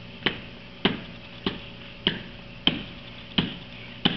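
A bare hand repeatedly striking a coconut resting on stone paving, trying to smash it open: seven evenly spaced sharp knocks, about one and a half a second.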